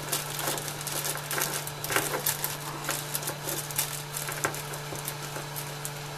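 The YIHUA YH-853AAA hot air gun's fan runs with a steady hum at one fixed speed, not responding to its airflow control, a fault the owner puts down to the variable resistor. Over it come irregular crinkling clicks, as of a small packet being handled, the sharpest about two seconds in.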